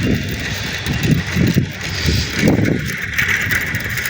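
Riding a bicycle, with wind buffeting the microphone in uneven gusts over the bike's rolling noise.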